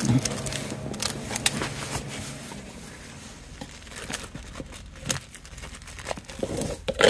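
Packaging being opened to unbox a new motorcycle battery: crinkling and tearing, with scattered sharp clicks and knocks of handling.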